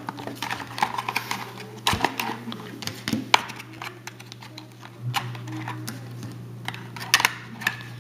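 Trading card packaging being handled and opened: irregular crinkling of a wrapper with sharp clicks and taps, over a low steady hum.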